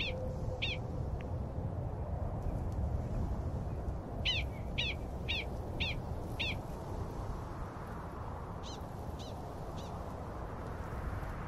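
Prairie dog barking: short, sharp calls about half a second apart in three bouts, two near the start, five in the middle and three fainter ones later, over a steady low rumble.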